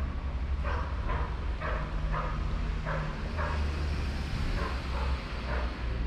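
Town street sounds: a steady low rumble of traffic, with a string of short sounds repeating about twice a second.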